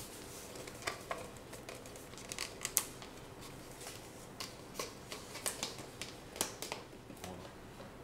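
A paper label being peeled and unwrapped from a plastic microwave bacon cooker: faint, scattered crackles and sharp little clicks of paper and plastic being handled.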